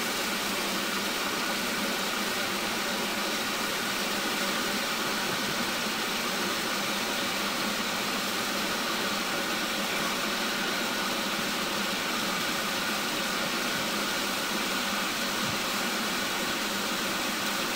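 Steady hiss of steam from a standing Nilgiri Mountain Railway metre-gauge steam locomotive.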